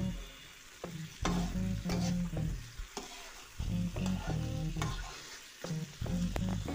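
A metal spoon stirring chunks of raw elephant apple in oil in a kadai: irregular scrapes and knocks of the spoon on the pan over a light frying sizzle.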